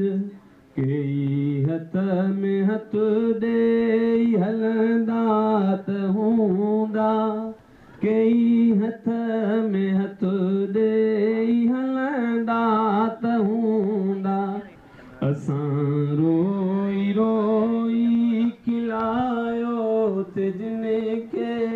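A man singing a Sindhi heartbreak song unaccompanied into a handheld microphone, in long phrases of held, wavering notes with brief pauses for breath.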